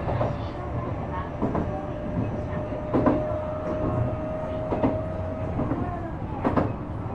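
Running noise inside a Shizuoka Railway A3000 series electric train: a steady rumble of wheels on rail, with sharp clacks of wheels over rail joints four times. A steady whine holds for a few seconds in the middle.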